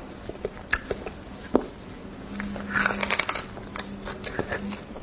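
Close-miked eating of braised beef bone marrow: scattered mouth clicks and sucking at the bone, with a denser burst of these sounds about three seconds in.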